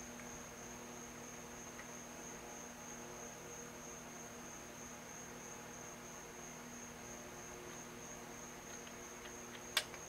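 Quiet room tone: a steady low electrical hum under a thin, steady high-pitched whine, with one sharp click near the end.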